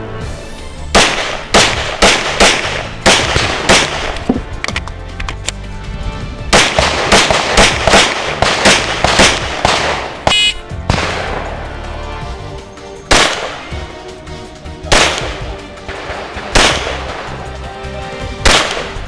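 Rapid strings of .40-calibre Glock 22 pistol shots, several a second, with background music underneath.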